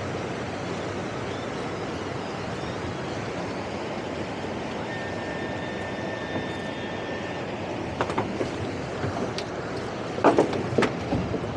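Steady running noise of a towboat under way: engine, wind and water together. Near the end come a few sharp knocks, the loudest about ten seconds in.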